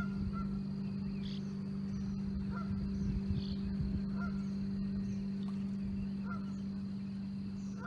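Gulls calling, short calls scattered every second or two, over a steady low hum.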